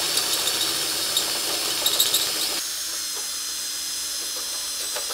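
Cordless drill with a 7/16-inch bit drilling out a rivnut in the car's bumper beam, a loud drilling noise. About two and a half seconds in, the cutting noise drops away to a steadier motor whine.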